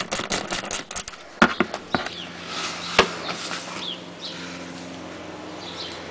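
Hand ratchet clicking rapidly while loosening a 9 mm nut on the car's plastic engine undershield, then a few separate clicks and knocks of the tool. Birds chirp faintly in the background.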